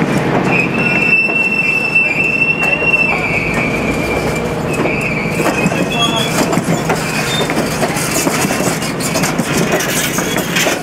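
Streamlined stainless-steel passenger cars rolling slowly past, their wheels squealing on the curve in a high steady tone that is strongest in the first few seconds and returns faintly later. Throughout there is rumbling, with clicking as the wheels pass over rail joints.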